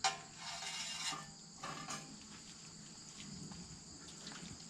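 Steady high chirring of insects in the background, with a brief rushing, splashy noise about a second long at the start and a shorter one near two seconds in.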